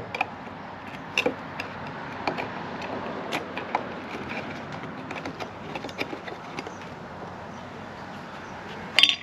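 Resin containers being handled while resin is measured out: scattered light knocks and clicks over a steady background noise, with a sharp clatter near the end.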